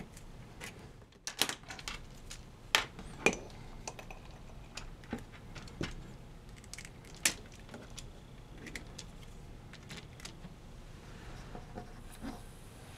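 Scattered small metallic clicks and clinks of banana plugs and alligator clips being unplugged, handled and reconnected as test leads are swapped, with the sharpest clicks in the first few seconds and one more about seven seconds in.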